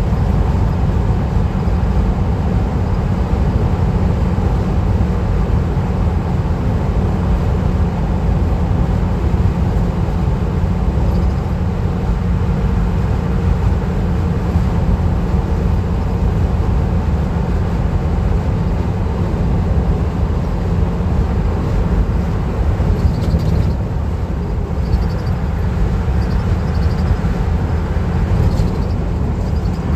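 Steady road and engine rumble of a van driving at highway speed, heard from inside the cabin, deep and unbroken.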